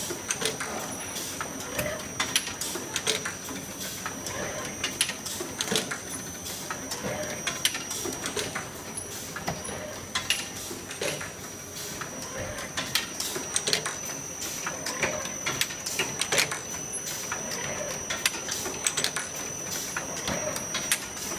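Automatic sugar cone baking machine running, its ring of cast-iron baking pans and mechanism giving off irregular clicks and metallic clanks over a steady high-pitched whine.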